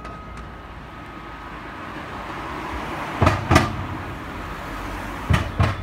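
Street traffic noise swelling as a vehicle passes. It is cut by two pairs of sharp thumps about two seconds apart, each pair a quick double knock, like wheels striking a bump or joint in the road.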